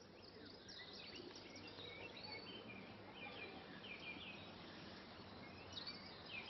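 Faint outdoor birdsong: several small birds chirping over a steady background hush, fading in over the first couple of seconds.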